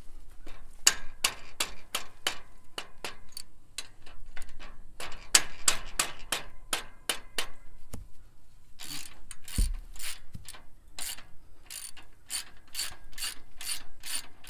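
Socket ratchet wrench clicking in quick runs of strokes as it works loose the nuts on a sickle bar mower's cutter bar. A single dull knock comes about two-thirds of the way through.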